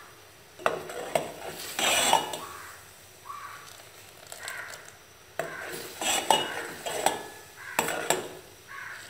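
Metal spoon knocking and scraping against a steel pot of boiling cola, a dozen or so uneven strokes, as the thickening syrup is scooped up and poured back.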